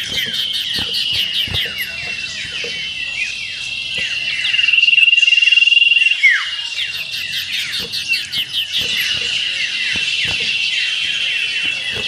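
Common iora (cipoh) singing a fast, shrill trilling song in the ngetir style: a steady high trill running under rapid chattering down-slurred notes.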